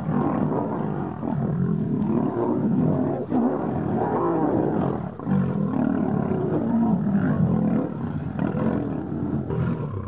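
Several lions growling and snarling as they fight at close quarters: a continuous, rough run of overlapping growls with a few brief breaks.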